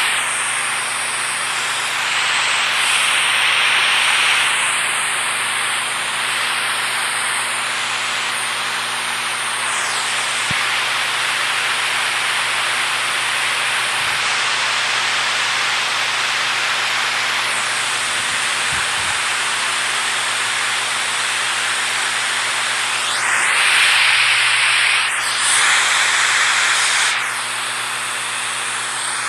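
Rushing water: a dense, steady hiss that swells louder twice, once near the start and once near the end.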